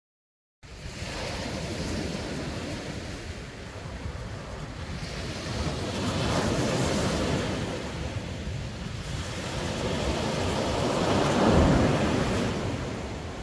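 Sea waves breaking on a beach, the surf swelling louder twice as sets come in, with wind buffeting the microphone.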